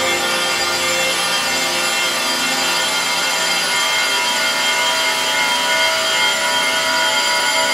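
A Make Noise Strega and Mimeophone echo feedback loop on a Eurorack modular synth, giving a dense hissing wash full of sustained tones. The lower tones drop away over the first few seconds, leaving a bright, noisy texture.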